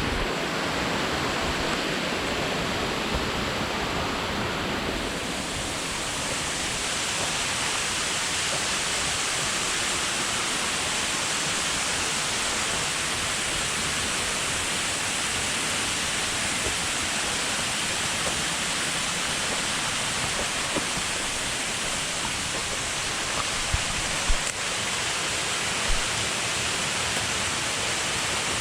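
Steady rushing of a waterfall. A few thin high tones above it stop about five seconds in, and a few small knocks come near the end.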